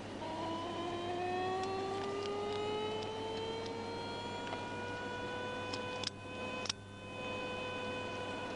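A vehicle engine accelerating: its pitch climbs smoothly for about five seconds, then holds steady. Two sharp clicks come about six seconds in.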